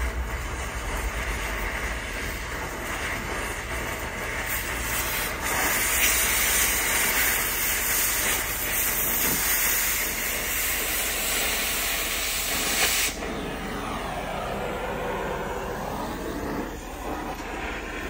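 Oxy-fuel cutting torch hissing steadily as it cuts steel. The hiss grows louder about five seconds in while it cuts through, then drops back abruptly about thirteen seconds in.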